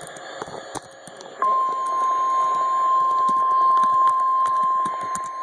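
NOAA Weather Radio's 1050 Hz alert tone: a single steady high tone that comes on suddenly about a second and a half in and holds, the alarm that precedes a broadcast weather alert. Before it, faint radio static with scattered clicks.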